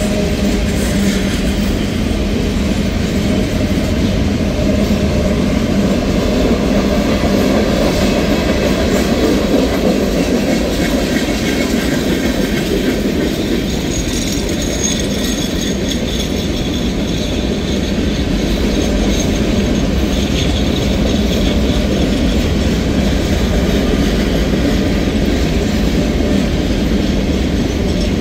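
Freight cars of a passing manifest train rolling by close at steady speed: a continuous rumble with wheels clacking over the rail joints. A faint high wheel squeal comes in about halfway through.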